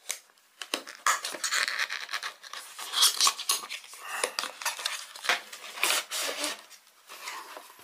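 Cardboard packaging being handled and opened: the flexing outer sleeve of a small retail box and its inner tray sliding out, an irregular run of scrapes, rustles and small clicks.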